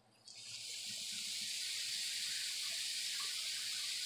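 Oil squeezed from a squeeze bottle onto Brussels sprouts on a hot flat-top griddle, sizzling: a steady hiss that starts a moment in and builds over the first second, with faint crackles.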